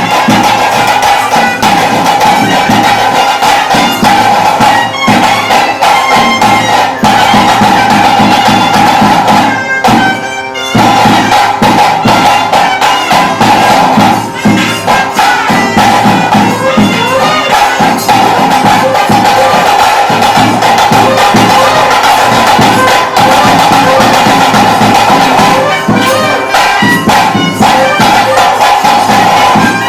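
Traditional ritual music: a wind instrument holds a loud, steady high note over dense drumming, with a short break about ten seconds in.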